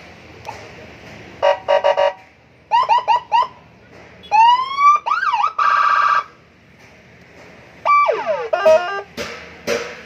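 Aftermarket electronic police-style siren on a Yamaha NMAX scooter, switched through its tone patterns in short bursts: a fast warble, four quick yelps, a rising wail, a trilling tone, then a falling sweep and rapid chirps near the end.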